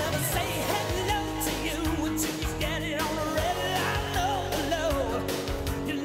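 Rock music with a singing voice over a steady bass and drum beat.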